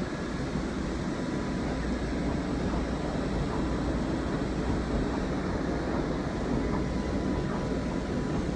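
Gildemeister MF Twin 65Y CNC turn-mill centre running empty, with no bar stock loaded, its spindles spinning: a steady machine hum with a faint steady whine above it.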